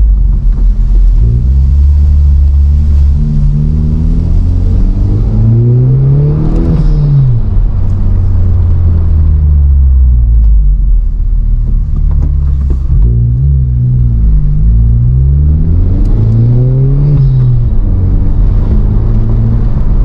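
Honda Civic Type R's turbocharged 2.0-litre four-cylinder, fitted with a PRL high-volume intake, pulling the car along at low speed. The engine pitch climbs and drops back several times as it revs up and eases off.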